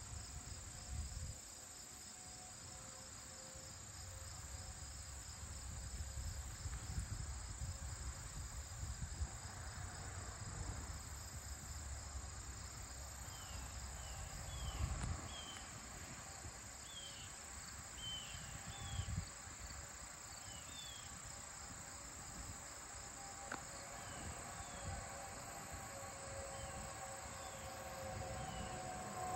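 Late-summer evening chorus of crickets and other insects: a steady high-pitched trill with a faster pulsing chirp beneath it. From about halfway in, a run of short, falling high chirps repeats every second or so.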